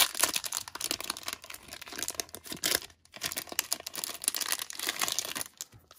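Clear plastic bag wrapped around a stack of trading cards crinkling and rustling as hands handle and open it, in an irregular stream of crackles with a brief pause midway.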